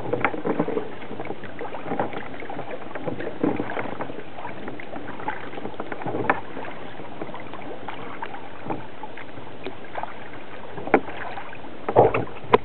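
Kayak paddling: soft, irregular splashes of the paddle blades entering and leaving the water every second or two, over a steady hiss. A few sharper, louder clicks come near the end.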